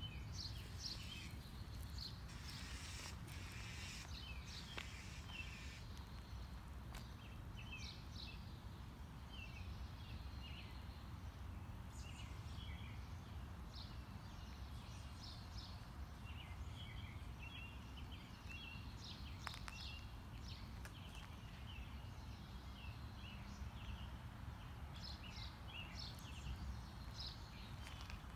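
Songbirds chirping and singing in short, repeated high notes, several at once, over a low steady rumble.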